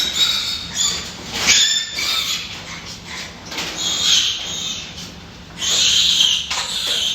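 Pigs squealing in several high-pitched bursts, the longest lasting over a second near the end.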